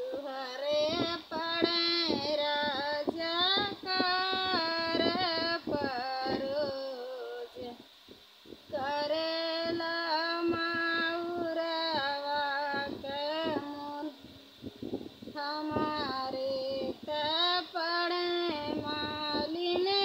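A woman singing an Indian folk wedding song (vivah geet) solo and unaccompanied, in long held, ornamented phrases. She breaks off briefly twice, about seven and fourteen seconds in.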